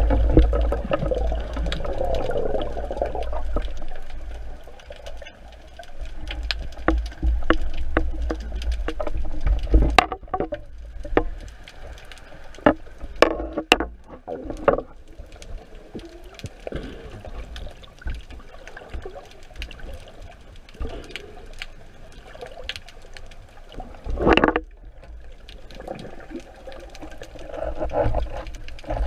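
Underwater sound: a low rushing of water moving against the camera housing, with many scattered sharp clicks and knocks from handling the speargun and spear shaft. The rushing is strongest in the first few seconds, and a louder knock comes about 24 seconds in.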